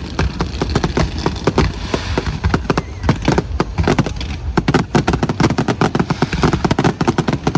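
Fireworks going off in a dense, rapid barrage of bangs and crackles, several a second without a break.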